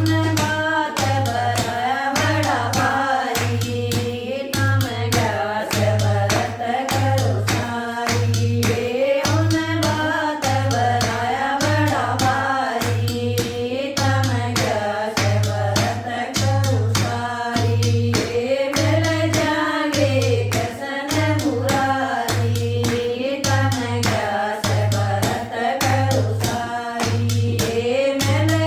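A group of women singing a Haryanvi bhajan together, with hand clapping and a steady low beat from a hand drum, about one and a half beats a second.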